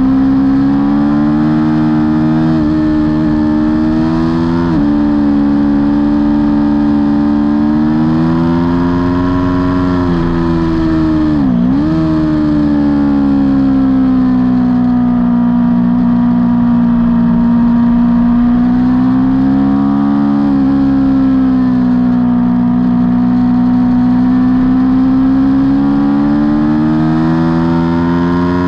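Aprilia Tuono V4's 65-degree V4 engine heard on board at racing revs, holding a high note through long pulls. The pitch drops abruptly on upshifts about five seconds in and again around twenty seconds. Around twelve seconds in it falls away and then climbs back steeply.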